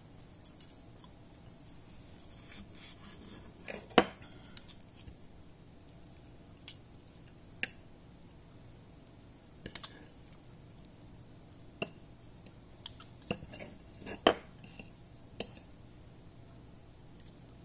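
Steel knife and fork clinking and scraping on a ceramic plate while cutting cooked chicken, with irregular sharp clinks every second or two; the loudest comes about four seconds in.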